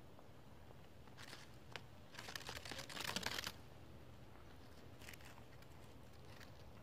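Dry dead leaves crackling and crinkling close to the microphone in short bursts: a brief one about a second in, the longest and loudest from about two to three and a half seconds, and shorter ones near five and six and a half seconds.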